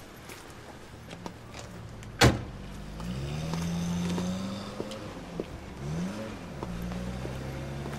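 A car door slams shut about two seconds in, then a car engine pulls away, its note rising and holding, rising and dropping again around six seconds in, then running steadily.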